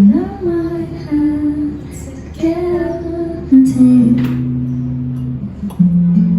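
Background song: a singer's voice holding long notes over a steady instrumental backing.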